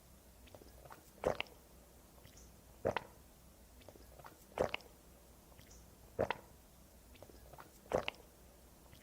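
A woman gulping water: five swallows, evenly spaced about every second and a half, with faint wet mouth clicks between them.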